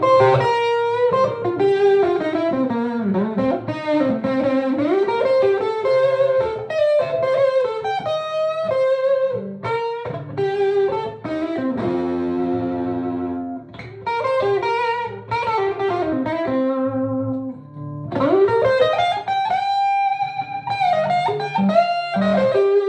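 Electric guitar playing southern-rock lead licks with many string bends, through a Mason Dixon tube amp with an Ibanez DM1000 slapback delay blended with a Music Man RD50 amp with reverb. A chord is left ringing about halfway through.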